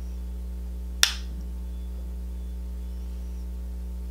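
A makeup compact clicks once, sharply, about a second in. A steady low electrical hum runs underneath.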